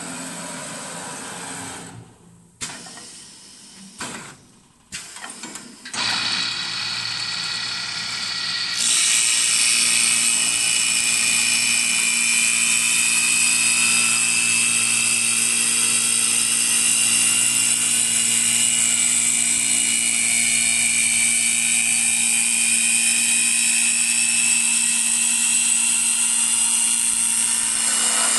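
Wood copy lathe running, turning a wooden chair spindle: a steady machine whine with several high-pitched tones. It is broken by a few brief drops in the first few seconds, then grows louder about six seconds in and again near nine seconds.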